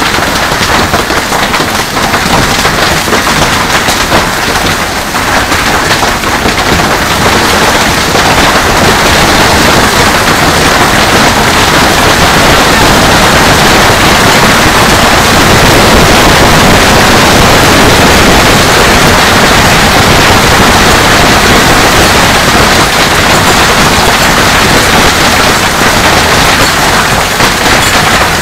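Heavy hail pelting a swimming pool and paved deck: a loud, dense clatter of countless hailstones that swells further about eight seconds in.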